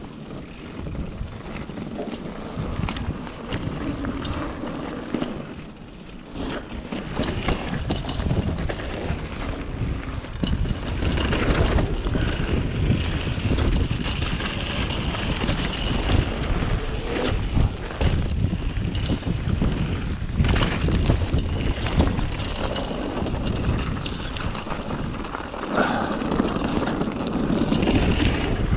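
Wind buffeting the microphone over rushing, splashing water, louder from about ten seconds in.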